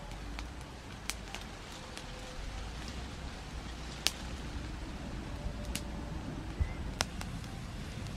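Wood campfire crackling, with a handful of sharp pops scattered through, the loudest about four seconds in, over a low steady rumble.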